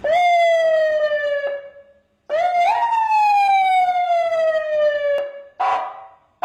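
Police siren sounding short manual wails: the pitch jumps up quickly, slides slowly down and fades out, twice, the second one held for about three seconds. Near the end come two short, harsher blasts.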